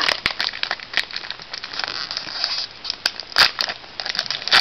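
Foil Yu-Gi-Oh booster pack wrapper crinkling and crackling as it is handled and opened, with irregular sharp crackles and one louder crack about three and a half seconds in.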